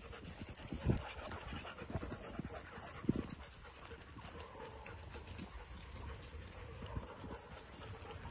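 Dogs panting as they trot along a path, with irregular footsteps and a few louder thumps, the strongest about a second in and about three seconds in.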